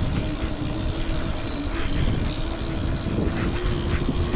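Mountain bike rolling along an asphalt road: wind rushing over the microphone, with a steady droning hum from the bike.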